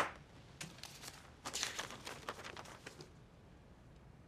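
A short tap, then sheets of paper rustling for a second or two as a document is picked up and opened.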